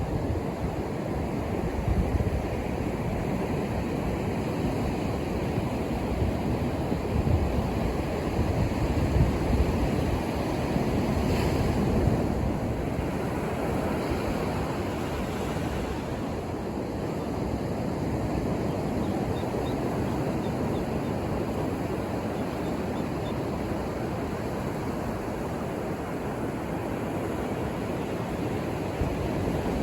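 Ocean surf washing onto a beach: a steady rush of breaking waves that swells louder about ten seconds in and then settles back.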